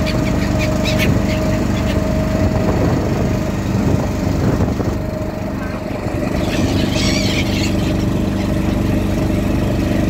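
A boat's engine running steadily, with a few short high calls from the gulls flying alongside near the start and about seven seconds in.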